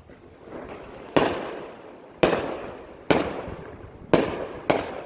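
Fireworks bursting: five sharp bangs about a second apart, each trailing off in a rolling echo.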